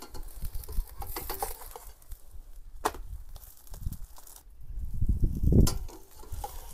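Metal spatula clicking and scraping against a stainless steel frying pan as a flatbread is pressed and moved around, with a few sharp clinks in the first three seconds. A low rumble swells near the end.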